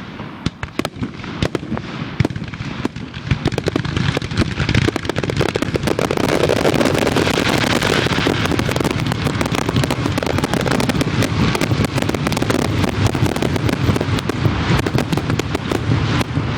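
Fireworks going off: scattered bangs at first, building about six seconds in into a dense, continuous barrage of cracks and booms.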